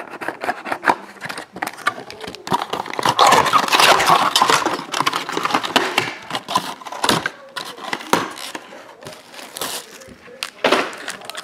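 Plastic shrink wrap crinkling and a cardboard trading-card box being handled and opened by hand: dense rustling and crackling with small tearing and tapping sounds, busiest a few seconds in.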